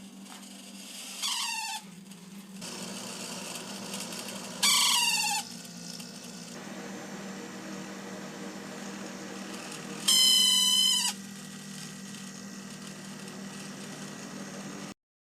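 A GE refrigerator's condenser fan motor runs with a steady low hum and lets out three squeals, each about a second long. The first two slide down in pitch, and the third, about ten seconds in, is the loudest and holds its pitch. The owner takes the squeal for the fan motor having come loose in its cage.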